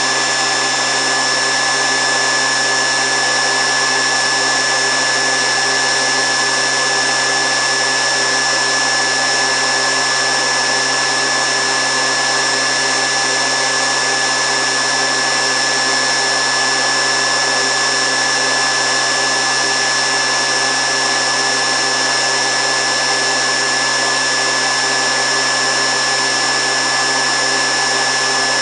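Steady electrical whine from an RF-4C attitude director indicator running on test power, with a constant high tone over a hiss.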